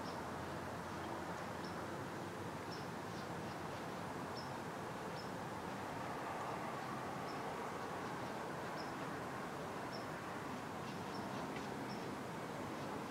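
Short high chirps from a small bird, one every second or so at an uneven pace, over the steady hiss of quiet woods; a few faint ticks near the end.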